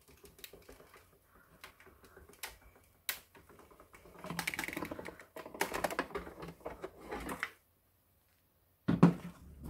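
Hand-cranked die-cutting machine being turned, its rollers pulling the cutting plates through with clicking and dense grinding for a few seconds. Near the end, a loud knock as the plates are handled and lifted out.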